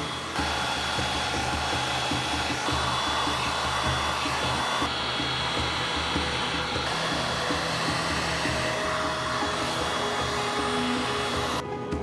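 A handheld electric blower, of the hair-dryer or heat-gun kind, running steadily with a constant rush of air over background music. It cuts off shortly before the end.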